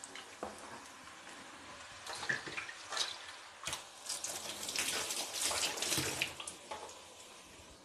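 Noodle fritters (chow pakoras) shallow-frying in oil in a pan, sizzling with irregular crackles and pops. The crackling thickens into a dense spell about four to six seconds in.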